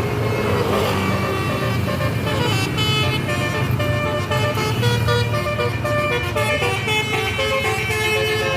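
Bus telolet horn playing a quick tune of stepping tones, starting about two and a half seconds in, over the steady low rumble of the bus's engine.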